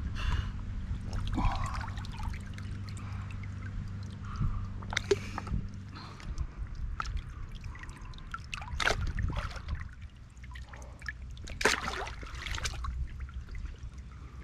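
Water sloshing and splashing around a large wels catfish held in shallow river water by a wading angler, with a few sharper splashes about 5, 9 and 12 seconds in. A low steady hum sits under the first half.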